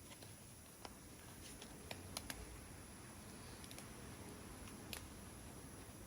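Near silence with a few faint, sharp handling clicks and light rustles, as a dust mask is put on.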